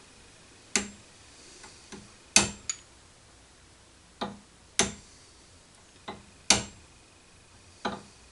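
A hammer tapping a brass drift to drive a spindle bearing down onto a mill spindle: about seven sharp metallic taps at uneven intervals, some in quick pairs.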